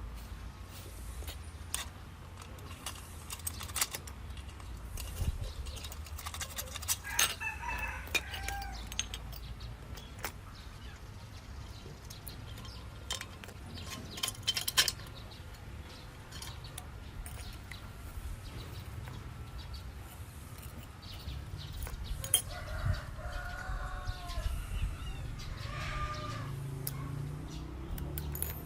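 Chickens calling, with a rooster-like call about seven seconds in and a longer run of calls in the last third, over scattered sharp clicks and knocks and a low steady hum.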